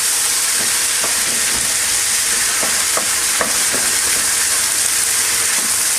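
Minced vegetable filling sizzling steadily as it sautés in a pan, just after seasoning is added, with a few light ticks of a utensil stirring it.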